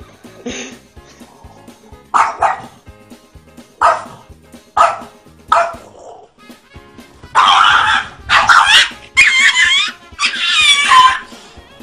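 A dog gives about five short, sharp barks over background music. From about seven seconds in, loud drawn-out cries with wavering pitch take over.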